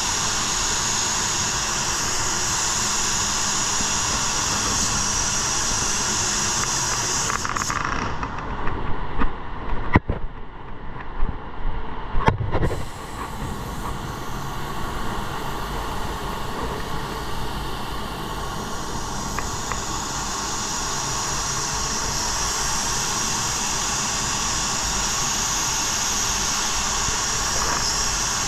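Automotive paint spray gun hissing steadily with compressed air, over a low steady rumble. About eight seconds in, the hiss stops for around five seconds with a few sharp knocks and clatters, then builds back up.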